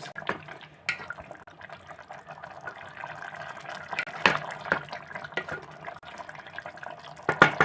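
Spoon stirring a thick, wet curry in a pressure cooker pot, with a squelching, liquid sound and a few clinks of the spoon against the metal, the loudest near the end.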